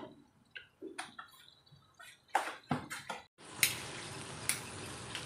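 A few light taps and clicks, then from about three and a half seconds in a steady sizzle of masala frying in hot oil in an aluminium pot, with a couple of scrapes of a metal spatula stirring it.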